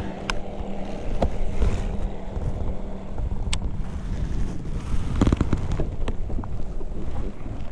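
Wind buffeting the camera microphone in an open boat, a steady low rumble. A few sharp clicks and knocks are scattered through it, with a short cluster of them about five seconds in.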